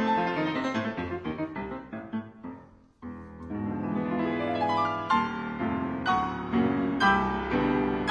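Solo piano background music; the phrase dies away shortly before three seconds in and the playing resumes.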